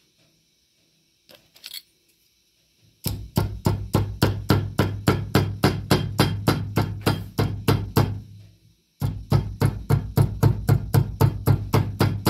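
Carpet weaver's beater comb struck repeatedly down into the warp of a vertical rug loom, packing the freshly tied knots and weft tight. Quick, even blows, about four a second, in two runs with a short break between.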